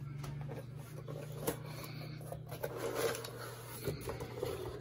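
A cardboard box being opened by hand: a light tap about one and a half seconds in, then the flaps rustling and scraping as the lid is lifted, over a low steady hum.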